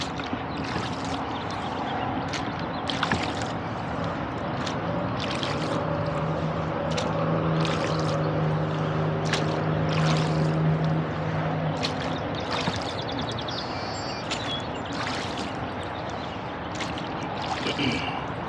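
Oars of a rowboat dipping and pulling through the water, with short splashes and trickling drips from the blades about once a second. A steady low motor hum comes in a few seconds in and fades out past the middle.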